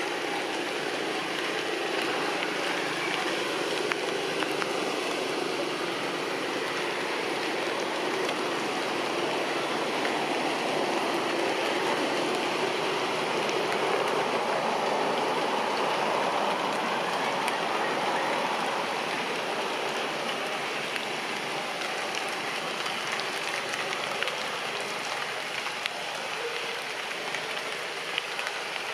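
Steady rain falling on tree foliage: a constant hiss with a few sharp drip ticks, swelling slightly in the middle.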